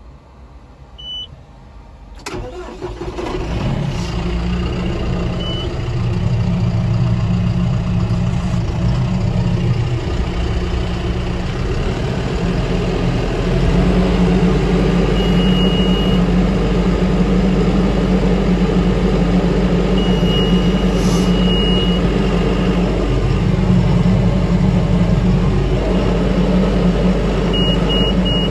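Tractor engine starting up about two seconds in, then running steadily and running harder from about twelve seconds in. Short high electronic beeps sound several times over it.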